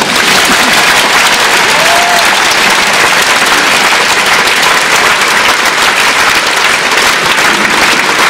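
A large audience applauding steadily, breaking out as the music ends.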